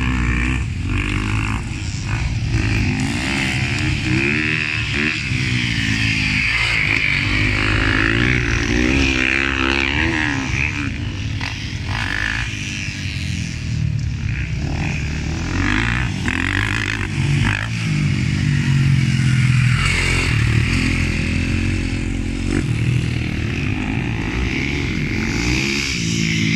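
Motocross dirt bike engine revving hard and easing off over and over as it is ridden around the track, its pitch climbing and dropping again and again.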